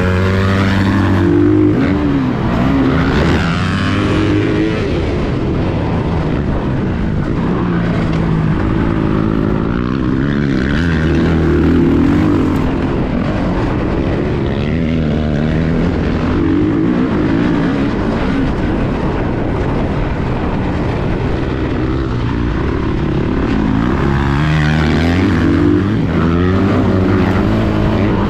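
Motocross dirt bike engine heard from on board while riding a track, revving up and down over and over as the rider accelerates, shifts and backs off, its pitch rising and falling every few seconds.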